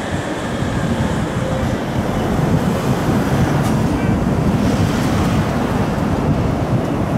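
Tokyu 5000 series electric train running across a steel girder bridge: a steady low rumble, mixed with wind buffeting the microphone.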